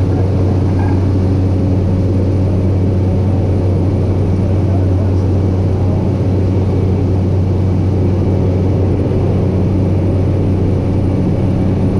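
Cessna 208B Caravan's Pratt & Whitney PT6A turboprop and propeller running steadily in flight, heard from inside the cockpit as a loud, even low drone.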